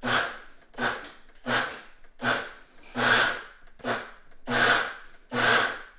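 Vitamix blender pulsed about eight times in quick succession, each short burst of the motor chopping a jar of dry rolled and steel-cut oats.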